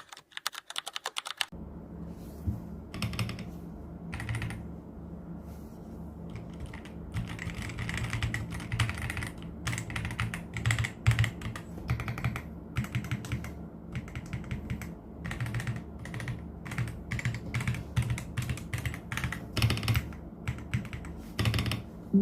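Typing on an Ajazz AK820 mechanical keyboard: key presses clicking very fast at first, then in uneven runs of keystrokes. A steady low hum runs underneath from about a second and a half in.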